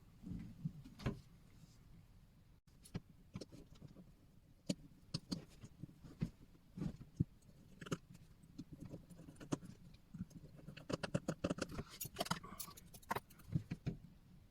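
Irregular small clicks and taps of metal tools on a wristwatch case as it is handled and opened, busiest near the end.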